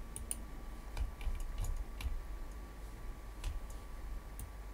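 Sparse computer keyboard and mouse clicks: a dozen or so single sharp taps at irregular intervals, over a faint steady tone.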